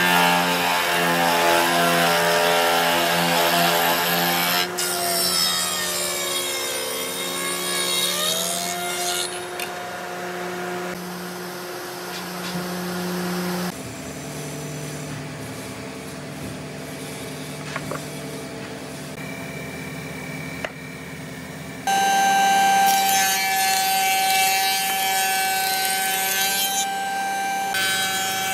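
Woodworking spindle moulders running and cutting wood: a steady motor whine whose pitch sags and recovers as the cutter bites into the board. It goes quieter for a stretch in the middle, then a high steady whine from another machine comes in near the end.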